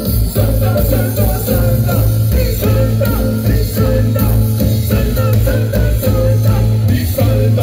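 Live band playing loud amplified music through a PA system, with guitar and a heavy bass line over a steady beat.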